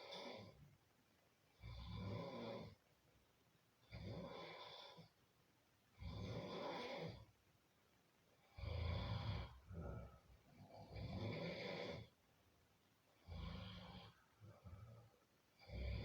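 A sleeping person snoring, one snore about every two seconds in a steady rhythm.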